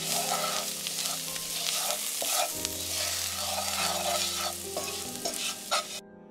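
Wooden spoon stirring and scraping diced onion, garlic and rice flour around a hot pan as they sizzle and fry. This is the flour being cooked into the softened onions and garlic for the sauce. The sound cuts off suddenly near the end.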